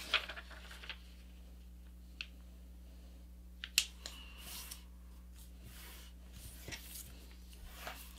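A square sheet of paper being folded in half and creased by hand: faint rustling and crinkling with a few sharp crisp snaps, the loudest a little before halfway, over a low steady hum.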